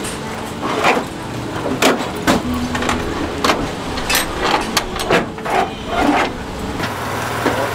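Irregular sharp knocks and clatters, about a dozen over several seconds, over a steady low engine-like hum.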